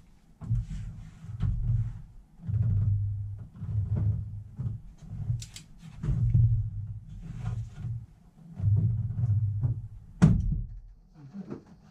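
Cylinder head bolts on a Honda V6 being tightened with a torque wrench in steps toward about 70: a run of low, muffled strokes about every second to second and a half as the wrench is pulled, and one sharp click about ten seconds in.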